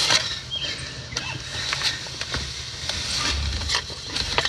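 Hands working on parts in a truck's dash: scattered light clicks and knocks over a low steady hum.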